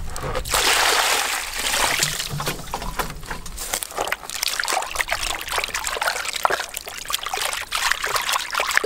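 Water splashing and sloshing in a plastic basin as hands scrub and rub a slab of raw meat, with many small wet splashes. There is a louder rush of water in the first couple of seconds.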